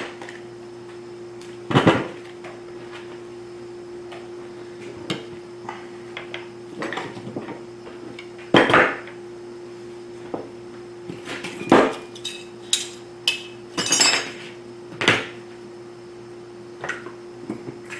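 Irregular knocks and clinks of hand tools and small parts being moved about on a workbench and against a plastic chainsaw housing, with a steady hum underneath.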